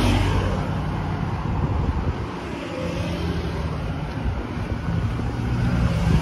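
Roadside traffic passing: motorbikes and cars going by, a steady rush of engine and tyre noise, with wind buffeting the microphone.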